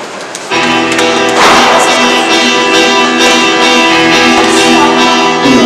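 Church musicians playing the instrumental introduction to the entrance hymn. The held chords come in about half a second in and grow louder about a second later.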